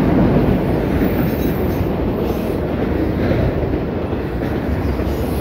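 Freight train's autorack cars rolling past close by: a steady, loud noise of steel wheels running on the rails.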